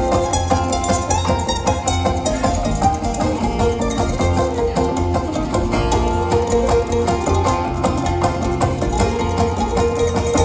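Live bluegrass band playing an instrumental passage, with mandolin and five-string banjo picking quick runs of notes.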